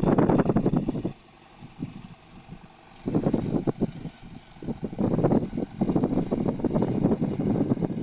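Wind buffeting the microphone in gusts, a low uneven rumble with a lull lasting about two seconds shortly after the start.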